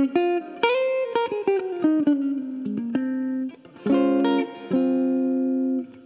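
Jazz guitar solo, ringing chords and single notes with little else under it. A note slides down in pitch about a second in, and there is a brief break midway.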